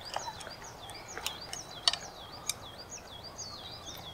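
A small songbird singing: a steady run of short, high, curving whistled notes, about three a second, with a few sharp clicks scattered through, the loudest about two seconds in.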